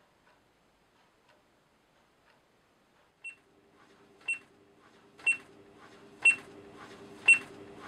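A clock ticking faintly once a second. About three seconds in, it gives way to short, high electronic beeps on the same once-a-second beat, each louder than the last, while a low hum and room noise fade in.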